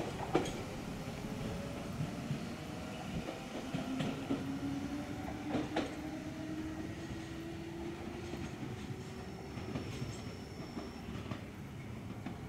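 Enshu Railway 1000-series electric train pulling away, its motors giving a faint whine that rises slowly in pitch as it gathers speed. There are a few sharp clacks from the wheels in the first six seconds, and the sound fades as the train draws off.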